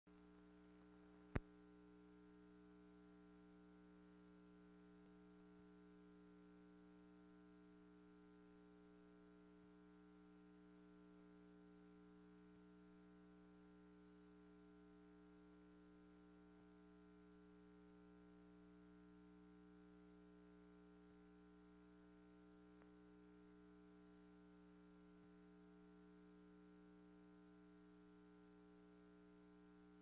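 Near silence: a faint, steady electrical hum with no sound from the filmed scene, broken once by a sharp click about a second in.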